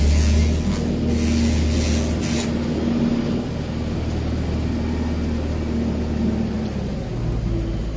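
Handheld laser cleaner hissing as its beam works over a brick, stopping about two and a half seconds in, over a steady low machine hum.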